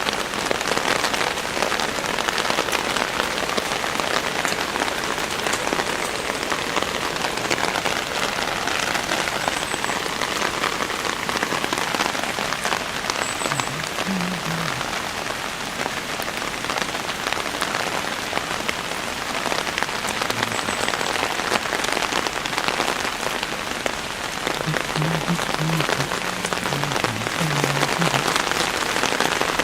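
Heavy rain falling steadily, a dense, even hiss of drops striking the ground.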